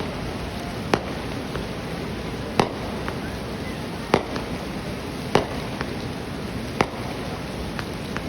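Fireworks going off: five sharp bangs spaced about one to two seconds apart, over a steady background rush.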